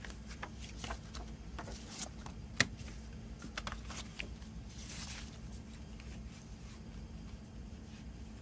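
Paper CD booklet and inserts being handled, a run of page rustles and small clicks, with one sharp click about two and a half seconds in as the booklet and plastic jewel case are set down. A longer papery slide follows about five seconds in, then the handling goes quieter.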